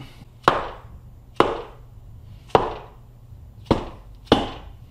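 Five sharp knocks on the aluminium Rotax 951 crankcase, each with a short ring, as the bottom case half is struck to seat it onto the top half.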